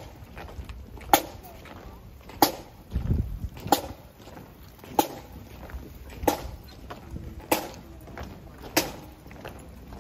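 A pipe band drum struck once about every 1.3 seconds in sharp single taps, beating a slow time for the marching column. A brief low rumble comes about three seconds in.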